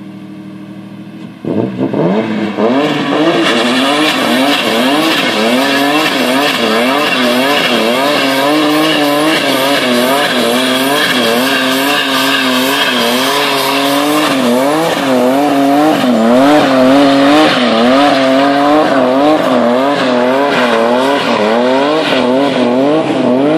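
Turbocharged BMW E34 528's M50B28 inline-six doing a burnout: it idles for a moment, then about one and a half seconds in it goes to high revs that swing up and down over and over as the rear tyres spin and squeal.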